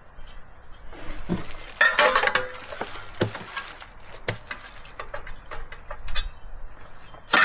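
Scattered clinks and knocks, with a burst of ringing clinks about two seconds in and single sharp taps after it.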